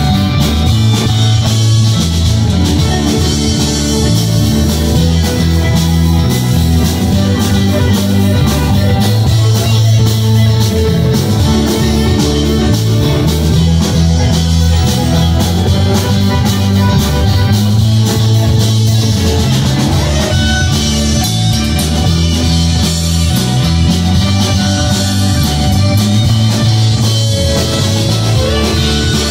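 Live blues-rock band playing loudly: electric guitars over a drum kit, with a repeating bass line.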